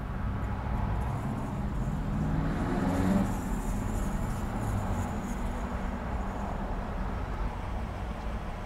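Busy intersection traffic running steadily, with one vehicle passing close about three seconds in: its engine and tyre noise swell, then fade.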